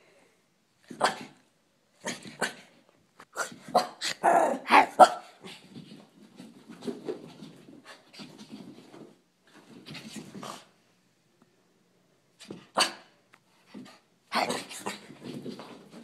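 Chocolate miniature pinscher barking and growling in irregular bursts while playing wildly, the loudest a few seconds in.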